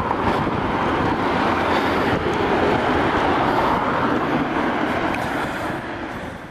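Steady rushing noise of wind buffeting the microphone, mixed with road noise from a moving bicycle. It fades away near the end.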